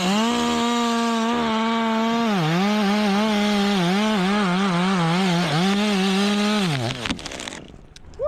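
Two-stroke chainsaw held at full throttle cutting through wood, its pitch sagging repeatedly under load, then released and winding down about seven seconds in. A few sharp cracks follow near the end.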